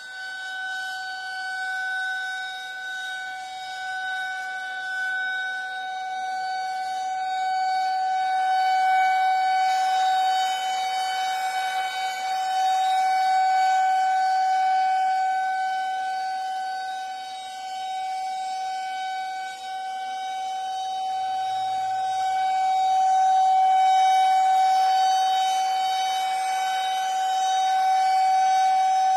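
Air raid siren sounding a steady wail held at one pitch, its loudness swelling and fading in slow waves.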